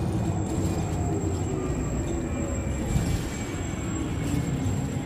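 Steady low rumble of a moving vehicle heard from inside its cabin, with a thin high steady whine over it.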